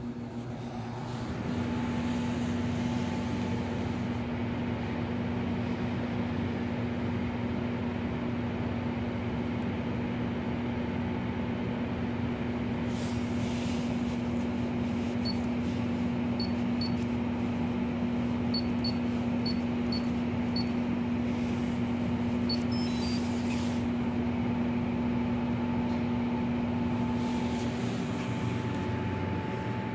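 JeioTech ISF shaker incubator running with a steady mechanical hum that settles in about a second in. About halfway through, a string of short high beeps comes from its touch-screen control panel as it is pressed.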